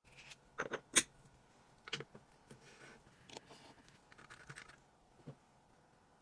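Small hand tools clicking, tapping and scraping on a watch in irregular handling noises, with the sharpest tap about a second in and short scratchy rubbing in between.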